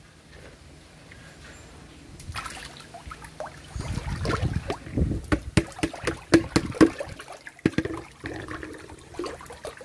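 Clarias catfish thrashing and splashing in the shallow water of a cement tank: quiet at first, then a busy run of splashes and sharp slaps from about four to eight seconds in, easing off near the end.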